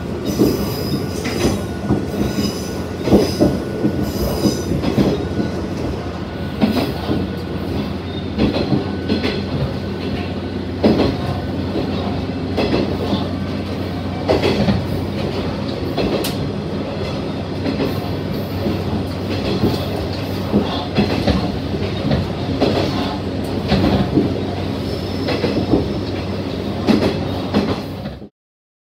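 Single-car diesel railcar running along the line, heard from inside the front cab: a steady engine drone with irregular clicks and knocks from the wheels on the rail joints. The sound cuts off abruptly near the end.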